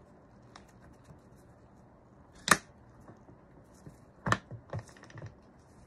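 A few sharp clicks and knocks as an electric skateboard's rear wheel is handled and turned: one loud knock about two and a half seconds in, then a loud click near four seconds followed by a few smaller ones.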